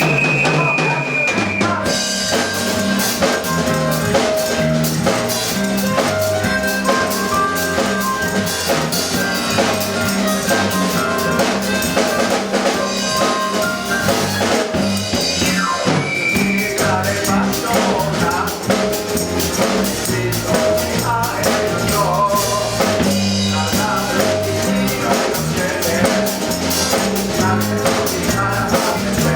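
Live band music with a full drum kit keeping a steady beat, bass and other instruments playing.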